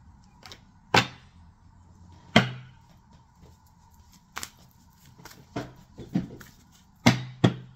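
Sharp knocks and taps on a tabletop as a tarot deck is handled: two loud knocks about one and two and a half seconds in, then a run of lighter taps, and a close pair of loud knocks near the end.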